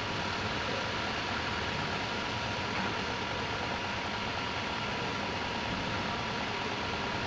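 Hot-air plastic welding gun running steadily, a constant blowing hiss with a faint steady whine, while it melts plastic into a crack in a car bumper.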